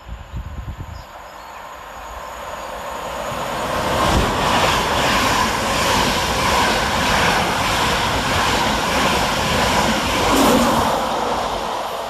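LNER InterCity 225 train, a Class 91 electric locomotive propelling Mark 4 coaches, passing through the station. The rumble and rush of wheels on rail builds over a few seconds, stays loud through the middle, and fades as the train draws away near the end.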